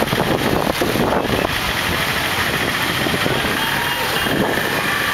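Busy street traffic: motorcycle, scooter and car engines running, with people talking in the background.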